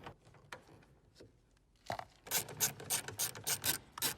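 Ratchet screwdriver clicking as it backs out a screw: a few scattered clicks, then about two seconds in a quick run of sharp clicks, roughly six a second.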